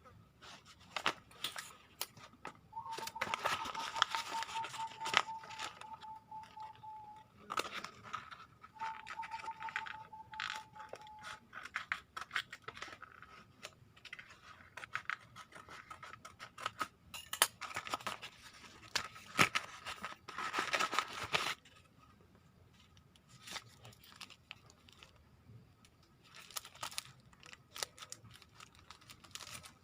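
Plastic courier packaging being torn and cut open by hand, in irregular bursts of tearing and rustling, loudest twice.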